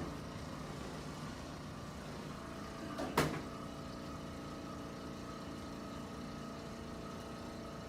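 A single sharp crack about three seconds in, a joint popping under a chiropractic adjustment, over a steady mechanical hum.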